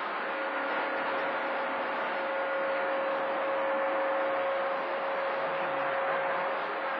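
CB radio receiver open on channel 28 between transmissions, hissing with skip band static. A steady low whistle sits in the static through most of it and stops near the end.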